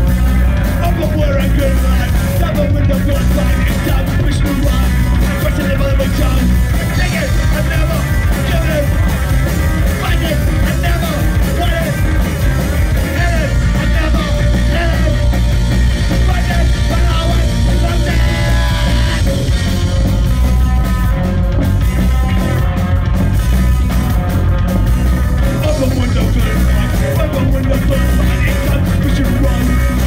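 Punk rock band playing live: electric guitars and drums driving hard, with a singer shouting into the microphone.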